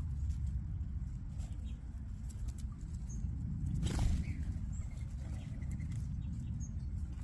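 A flock of small birds feeding on the ground: a patter of light pecking and scratching clicks, a flurry of wings about four seconds in, and a few faint chirps, over a steady low rumble.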